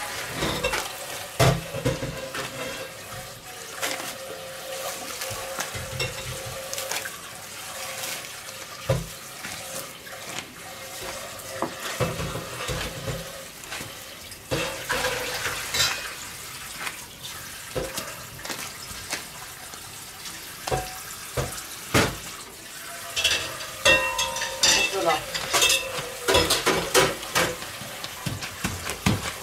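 Cling film crinkling and rustling under gloved hands as a sticky dough is pressed flat into a disc, with many small crackles and clicks that grow busier near the end.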